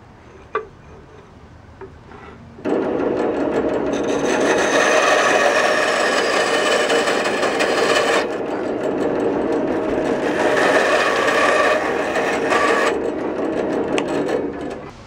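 Band saw cutting through a block of black pipestone: a loud, steady gritty sawing sound with a whine in it. It starts abruptly about two and a half seconds in and dies away just before the end.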